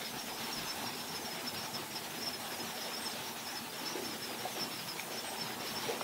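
Outdoor lakeside ambience: a steady hiss with a continuous high-pitched, rapidly pulsing chirr running underneath, and no distinct calls or knocks.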